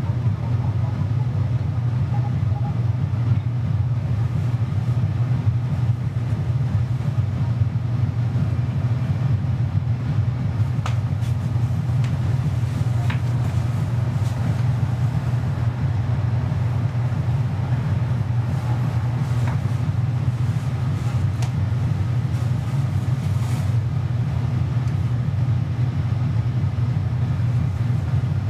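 A steady low rumble, unchanging throughout, with a few faint pops about 11 to 13 seconds in.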